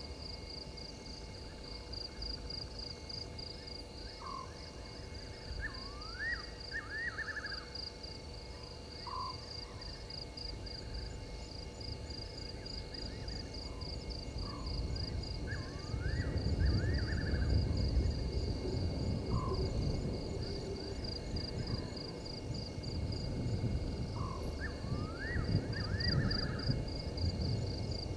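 Night bush ambience: an insect trill pulsing fast and steadily, with a short rising call repeated every four to five seconds. From about halfway, a louder rustling and crackling of brush comes in as the elephant browses in the bushes.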